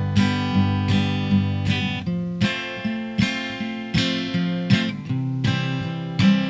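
Acoustic guitar strumming chords at a steady pace, with no singing.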